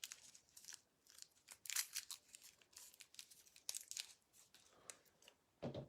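Faint rustling and light flicks of trading cards being handled and slid apart, in scattered short bursts.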